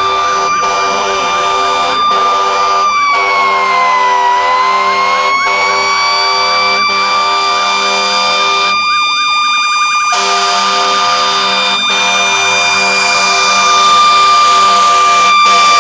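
Fire engine siren sounding at a steady high pitch, sagging about three seconds in and winding back up to hold steady again. Other, lower steady tones and a few brief siren sweeps run beneath it.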